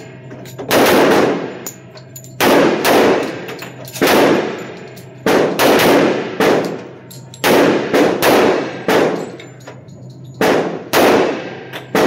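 Handgun shots from several shooters firing at once on an indoor range: about fifteen sharp reports at uneven spacing, some close together, each ringing off the walls of the range.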